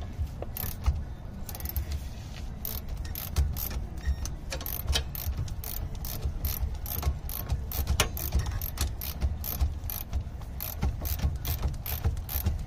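A socket ratchet, a Milwaukee cordless electric ratchet worked by hand, clicking steadily about two to three times a second as it turns the nut of a rear stabilizer bar link. The mechanic suspects the link stud is still spinning with the nut despite the locking pliers.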